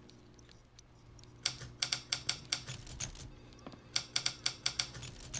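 Manual typewriter being typed on: two quick runs of sharp key strikes, about eight each, with a pause of about a second between them.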